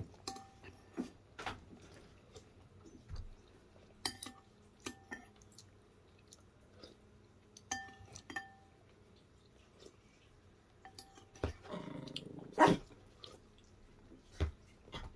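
Metal spoon clinking against a ceramic bowl now and then during a meal; several clinks leave a brief ring. About twelve seconds in comes a short dog vocalisation, a low grumbling sound.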